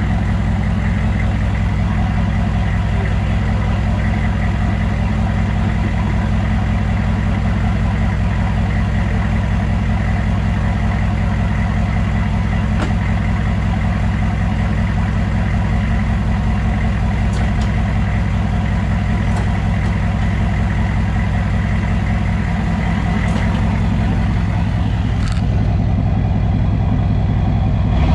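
Chevy K2500's 6.5-litre turbo-diesel V8 idling through a 4-inch straight pipe, a steady low rumble with a faint steady high whine above it, getting slightly louder near the end.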